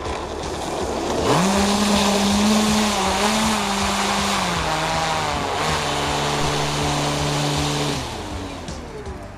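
Joker 6350 brushless electric motor and 16x12 propeller of a large electric RC model plane spinning up hard with a strong steady hum, run in reverse thrust to brake on the runway. The pitch steps down twice and the motor cuts off suddenly near the end.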